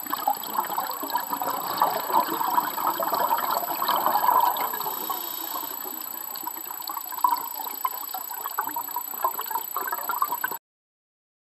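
Water bubbling and gurgling: a dense, crackly stream of small pops that cuts off abruptly near the end.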